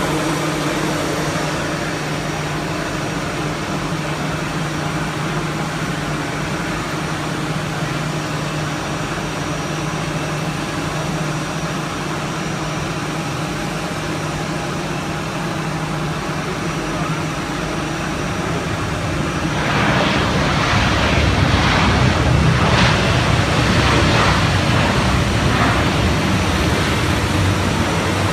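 Airbus A320 jet airliner landing. A steady engine hum with a faint held whine gives way about twenty seconds in to a louder, rougher rushing roar with a deeper rumble, as the aircraft passes close by on the runway.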